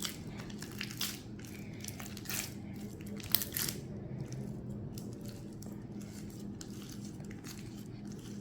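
Butter slime being mixed and worked in a bowl, giving off sticky clicks and crackles. They are thickest in the first few seconds, with one sharp click about three seconds in.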